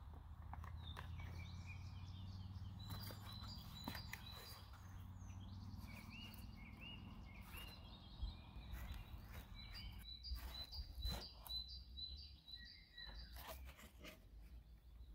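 Faint songbirds chirping and singing in short repeated calls over a steady low outdoor rumble, with a few soft knocks and rustles of handling from about ten seconds in.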